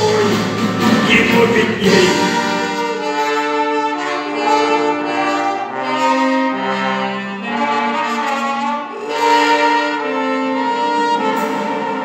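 Live band playing an instrumental ending to the song after the last sung line: a melody of held notes over the band, with drum hits in the first couple of seconds that then drop away.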